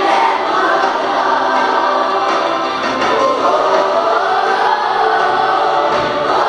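A class of children singing a song together in chorus, many voices on one melody with no break.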